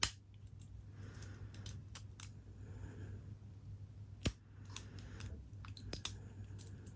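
Lock pick and tension wrench working the pin stack of a Yale padlock: irregular small metallic clicks and light scraping as pins are lifted, with a sharper click at the start and another about four seconds in. A steady low hum lies underneath.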